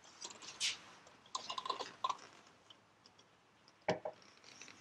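Rustling and light crackly clicking of something being handled, followed by two sharp knocks about four seconds in.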